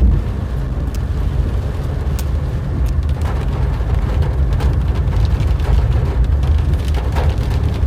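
Car driving on a rain-soaked road, heard from inside the cabin: a steady low rumble of engine and tyres on the wet surface, with scattered faint ticks.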